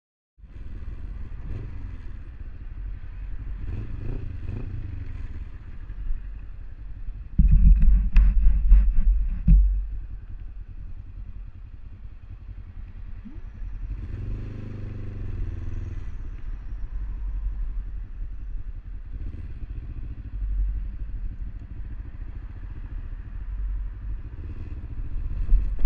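Motorcycle engine heard from a camera mounted on the bike, running at low speed in traffic. It gets louder for about two seconds around eight seconds in, and briefly rises and falls in pitch about halfway through.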